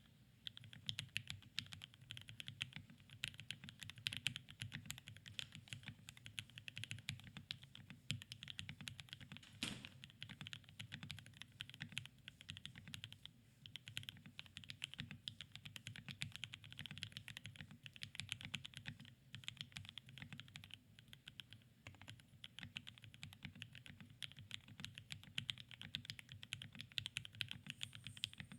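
Continuous fast typing on a freshly built KBDfans TOFU65 aluminium-case mechanical keyboard, a first typing test of the build: a dense run of keystroke clicks from lubed, filmed Alpaca switches under ABS doubleshot keycaps, starting at once.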